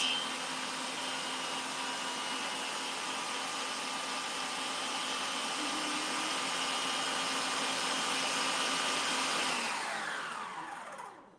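Electric stand mixer with a wire whisk running at high speed, beating egg whites to a stiff foam for meringues: a steady whir with a faint whine. Near the end the motor is switched off, its pitch sliding down as it winds to a stop.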